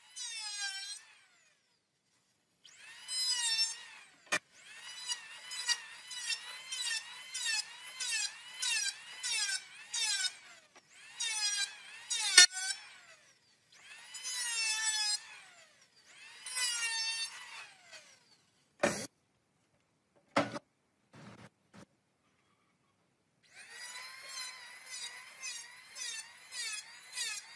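Handheld electric planer shaving the edge of a wooden board in a series of short passes. Its whine dips and recovers with each cut. The passes stop for a few seconds about two-thirds through, leaving only a few sharp knocks, then resume in quick short strokes.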